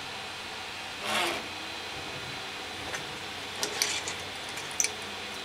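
Hands working on a 3D printer's drive belts as they are re-tightened: a short rubbing scrape about a second in, then a handful of small sharp clicks near the end, over a steady hiss.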